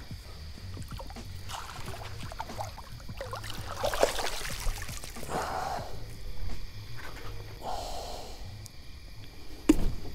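A flathead catfish being pulled alongside and landed in a kayak: water splashing and rustling around four to six seconds in, with small clicks and knocks of handling throughout. A sharp thump comes near the end.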